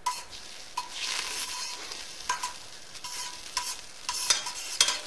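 Olive oil and margarine warming in a stainless steel pressure cooker with a light sizzle, not yet fully hot, while a utensil stirs and scrapes across the pot's bottom. Its irregular knocks make the pot ring briefly, the loudest ones near the end.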